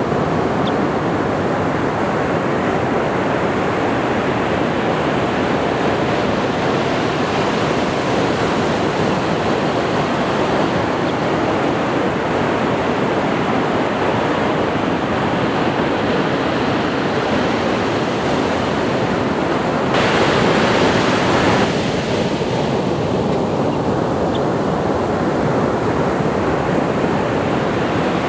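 Ocean waves breaking and washing on the shore in a steady rush of surf, with a louder, brighter surge about twenty seconds in.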